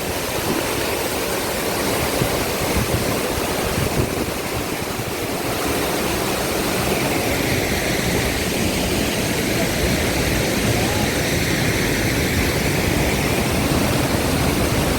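Chitrakote Falls on the Indravati River: the steady, loud rush of a broad waterfall.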